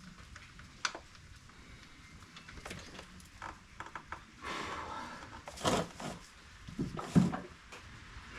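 Sump drain plug being undone under a Toyota Land Cruiser: a few light metallic clicks, then from about halfway a steady rush of hot engine oil pouring out into a funnel, with two sharp knocks during the pour.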